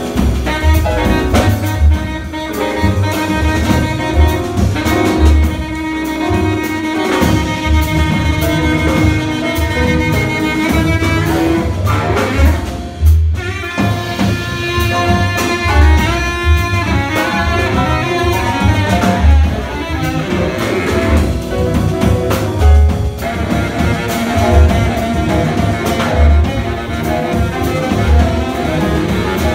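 Live jazz quartet playing: baritone saxophone over piano, double bass and drum kit.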